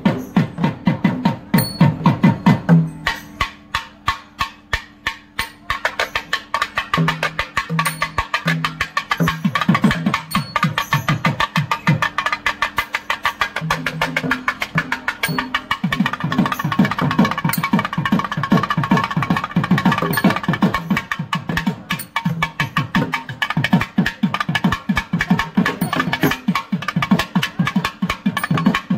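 Kerala temple festival percussion ensemble playing fast, dense drum strokes, with a steady low held tone joining about three seconds in.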